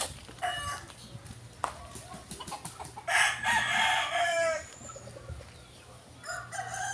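Rooster crowing. One full crow comes about three seconds in and drops in pitch at its end, with shorter calls near the start and another starting near the end.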